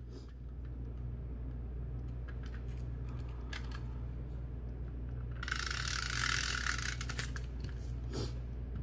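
Adhesive tape runner rolled across the back of a sheet of patterned paper: a rasping hiss for about three seconds, starting a little past halfway. Before it, a few faint rustles of paper being handled.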